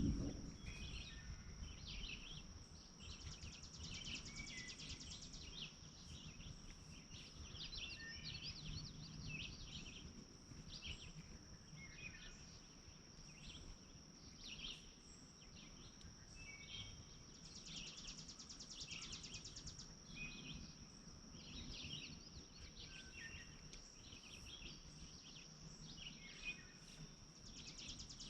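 Faint outdoor lakeside ambience: small birds chirping and calling on and off, over a steady high-pitched insect drone that three times swells into a rapid pulsing trill for a couple of seconds.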